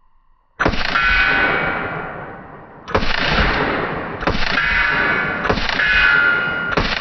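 A series of loud metallic clangs, five in all, the first about half a second in and then about one every 1.3 seconds, each ringing on for a second or more.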